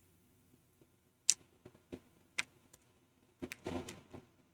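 Plastic DVD case being handled, giving a few scattered light clicks and taps, with a small cluster of them near the end.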